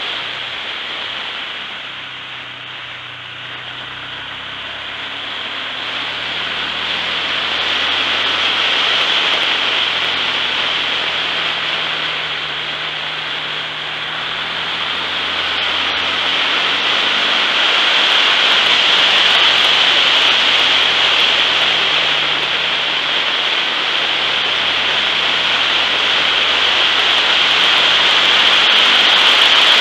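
A vehicle driving on the road: a steady rush of wind and road noise over a faint engine note that shifts in pitch. The noise swells and eases as the speed changes, loudest in the second half.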